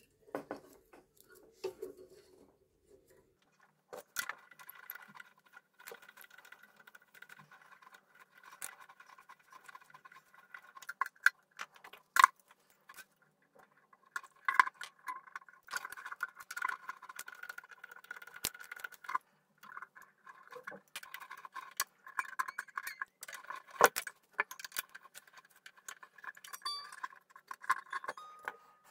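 Steel mandolin strings being handled and fitted: loose metal string ends jangling and rubbing, with scattered sharp clicks and taps. It starts about four seconds in and grows busier in the second half.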